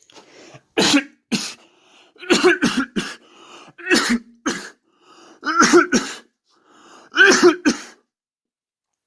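A person coughing repeatedly, in about five short fits of two to four coughs each, with quiet gaps between the fits.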